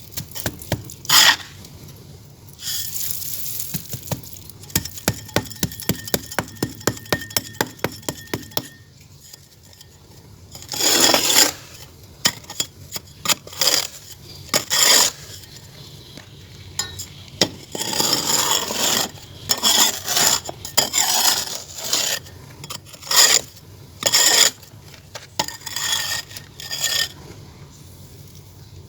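Clay being worked by hand, with scraping and rubbing strokes. In the first third comes a run of quick, even strokes at about three a second, followed by irregular scrapes and short knocks.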